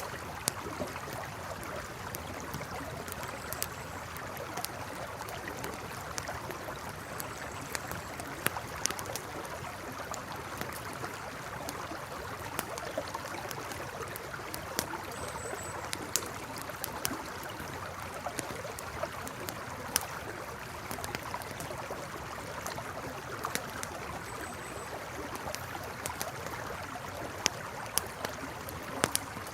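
River flowing steadily beside a campfire whose wood crackles, with sharp pops scattered irregularly throughout.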